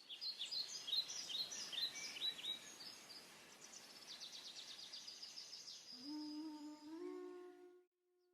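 Birds singing, rapid chirps and trills over a soft steady hiss. About six seconds in, a sustained low musical note enters, slides up a little and holds, and everything fades out near the end.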